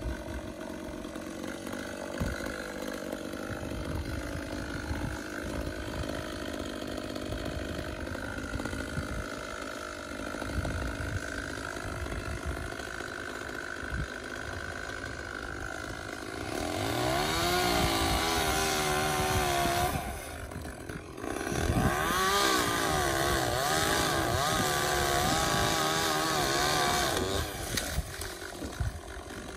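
A chainsaw idles steadily, then is revved up and cuts twice, about 16 s in and again from about 22 s in, with the pitch wavering under load. It drops back to idle near the end.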